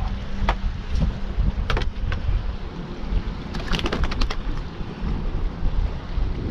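Wind buffeting the microphone over water lapping around a kayak, broken by a few sharp knocks and a quick rattle of clicks about three and a half to four seconds in, as a paddle is handled and laid against the plastic hull.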